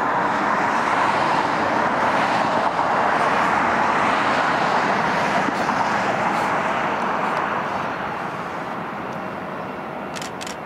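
Airbus A380-800 on final approach with landing gear down: a broad rush of four-engine jet noise that builds over the first seconds, holds, then slowly fades near the end.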